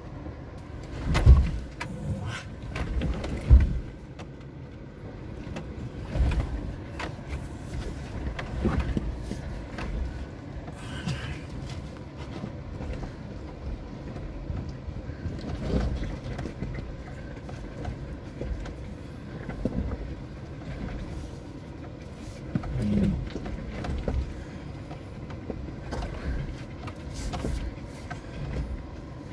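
Inside the cabin of a Suzuki Jimny creeping down a steep rocky track: a steady low rumble broken by irregular thumps and knocks as the tyres drop over rocks and the body and suspension jolt. The two loudest thumps come about a second and three and a half seconds in.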